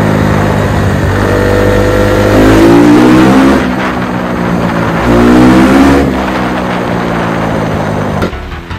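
Honda CRF250 dirt bike's single-cylinder four-stroke engine running hard at road speed, its pitch climbing twice as it accelerates, with a drop between and a let-off near the end. Wind rushes on the microphone throughout.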